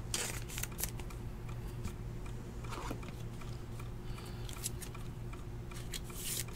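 Trading cards being flipped through and slid against one another by hand: faint, scattered clicks and rustles over a steady low hum.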